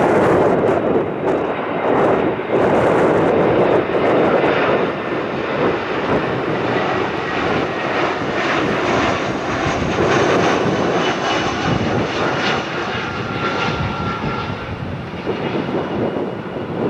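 Airbus A320 jet engines at approach power as the airliner flies low past with its landing gear down: a loud, steady rushing noise with faint whining tones in the middle, easing slightly near the end.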